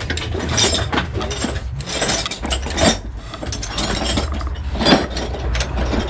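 Ratchet wrench clicking and metal tools clinking on an Isuzu 4BC2 diesel engine during a top overhaul, in irregular clicks and knocks over a low steady hum.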